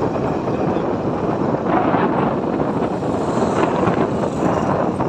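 Wind rushing over the microphone with the steady road and engine noise of a moving vehicle.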